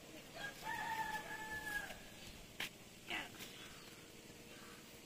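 A rooster crowing one long, held call of about a second and a half, followed by a sharp click and a short falling call.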